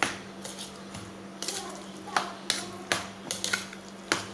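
Metal spoon clicking and knocking irregularly against a bowl while mixing mashed roasted eggplant with chopped onion, tomato and chilli, about one or two knocks a second, over a steady low hum.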